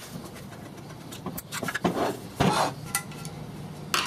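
Metal clinks and scraping as a table saw's electric motor is handled and shifted on a workbench, with a sharp knock near the end.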